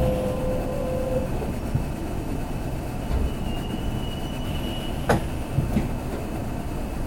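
Kintetsu limited express train running into the underground Osaka Uehommachi station, heard inside the car: a steady rumble of wheels on the track, with a falling whine that dies away about a second in. A thin high wheel squeal follows about three seconds in, then a sharp click about five seconds in.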